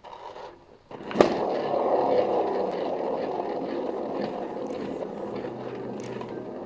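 Hand-spun paint spinner turning a canvas: a sharp knock as it is set going, then a steady rolling rumble with faint ticks that slowly fades as the spinner slows.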